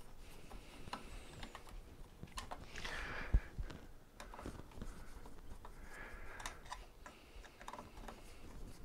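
Light, scattered metal clicks and taps of a small hand tool working at the bottom fitting of a mobility scooter's tiller adjustment strut, with one sharper knock about a third of the way in.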